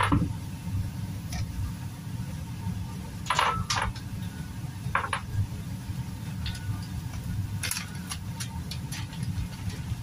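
Kitchen handling sounds: scattered short clicks and knocks of dishes and utensils as boiled chicken feet are cleaned over a bowl, over a steady low hum.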